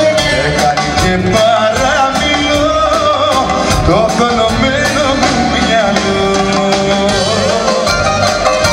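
Live Greek popular music: a full band with a steady drum beat, and a male vocalist singing into a microphone.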